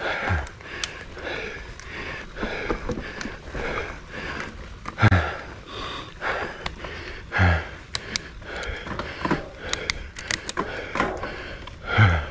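A person's heavy breathing close to the microphone, with four hard exhalations that fall in pitch. Between them come quick clicks and rattles.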